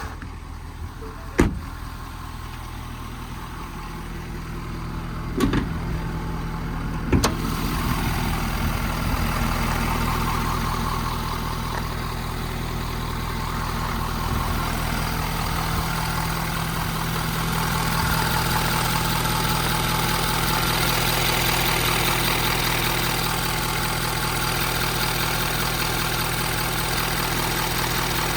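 An engine idling steadily, with a few sharp clicks in the first seven seconds. After about seven seconds a louder whirring hiss joins it and runs on.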